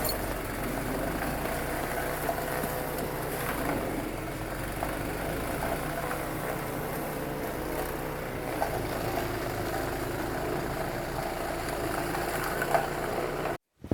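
An engine running steadily at an even speed, cut off abruptly near the end.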